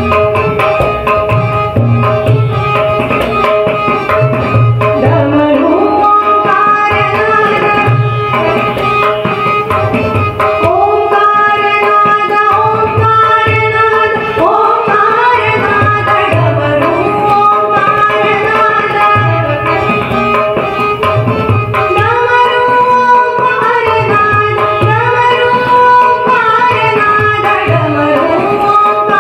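Marathi natya sangeet performance: a woman singing, accompanied by harmonium and tabla, with the tabla's deep bass strokes keeping a steady rhythmic cycle under the melody. The voice runs through gliding, ornamented phrases.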